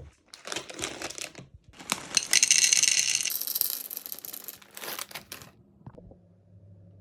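Rustling and crinkling of things being handled, in irregular bursts, loudest around the middle, then a faint steady low hum from about six seconds in.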